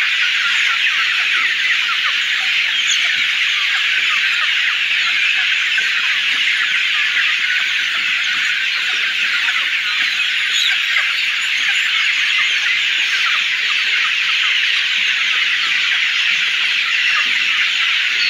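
A crowded flock of young chickens calling without pause, many high peeps and cheeps overlapping into a steady chatter.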